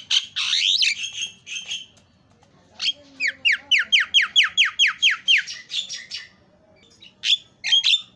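Javan myna calling: a harsh squawk first, then a quick run of about a dozen clear whistles, each sliding down in pitch, about five a second, and a few harsh notes near the end.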